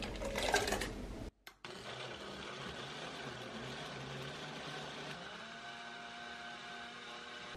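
Liquid poured into a personal blender's cup, then after a short cut the blender motor running steadily, blending partly thawed frozen smoothie ingredients. Its pitch shifts a little about five seconds in.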